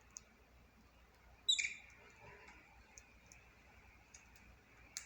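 A budgerigar gives one short, high chirp about a second and a half in, among scattered faint clicks.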